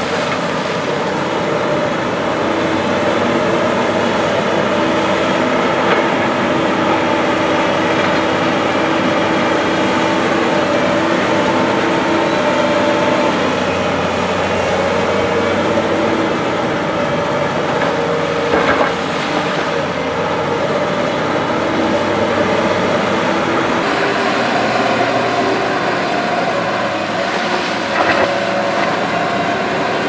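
JCB crawler excavator's diesel engine running under load with the whine of its hydraulics as the boom and bucket dig and dump soil, the note shifting a few times. Two short clanks, one about two-thirds of the way through and one near the end.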